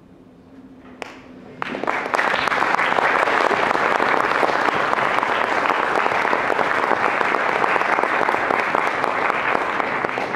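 Audience applauding. A single early clap about a second in, then the applause breaks out and holds steady.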